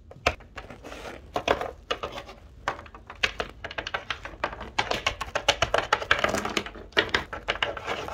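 Small plastic Littlest Pet Shop toy figures tapped and hopped across a wooden tabletop: a quick, irregular run of light clicks and knocks.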